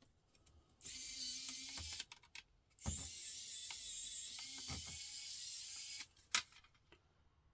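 Small electric screwdriver fitted with a Phillips bit running in two bursts, one short and one about three seconds long, working at a tiny laptop screw, followed by a single click.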